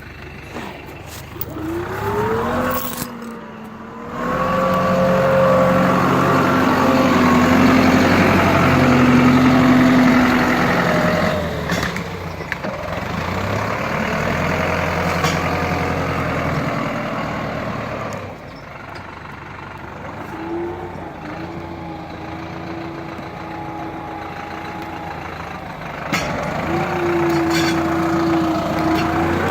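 Deutz 4080E tractor's diesel engine working hard under load. It revs up about two seconds in and holds high and loud for several seconds, then eases to a lower pitch before revving up again near the end.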